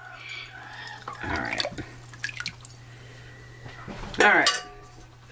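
Brine dripping and splashing back into a pot as a metal measuring cup is dipped in it and lifted out, with a few light knocks and a steady low hum underneath.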